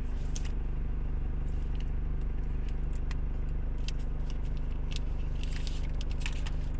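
Light crinkling and scattered small clicks of a smartphone's protective plastic wrap and its cardboard box tray as the phone is lifted out and handled, over a steady low hum.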